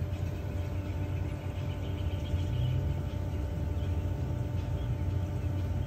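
Steady low machine hum from a Jandy LRZ gas pool heater and its equipment running through the ignition sequence: the hot surface igniter is glowing and the gas valve has not yet clicked open.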